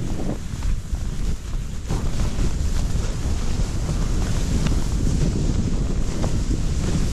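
Wind buffeting a GoPro's microphone during a fast ski descent, a steady loud rumble, with the hiss of skis running through powder snow.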